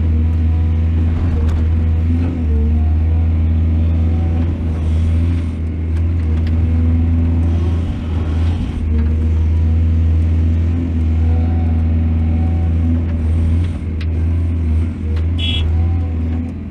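Excavator's diesel engine running steadily with a deep, constant hum, its pitch wavering slightly as it works, with a few brief clicks.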